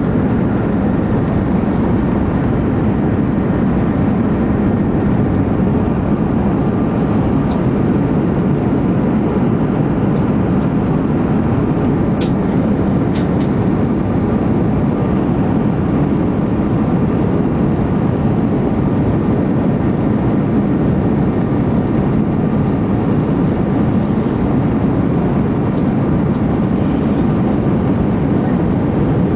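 Steady roar of jet engines and rushing air heard inside an Airbus airliner's passenger cabin on its approach to landing, with a few faint clicks near the middle.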